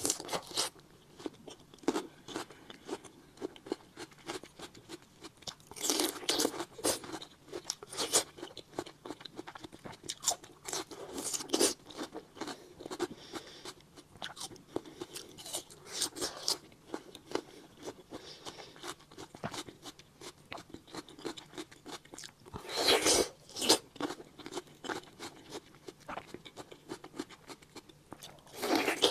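Close-miked eating of fruit: a run of bites and crunchy chewing, with a few louder crunching bites spread through.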